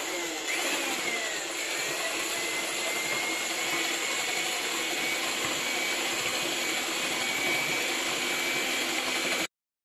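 Electric hand mixer with dough hooks running steadily, mixing lard into a soft batter in a stainless steel bowl. Its motor gives a high whine that rises slightly, then holds, and the sound cuts off suddenly near the end.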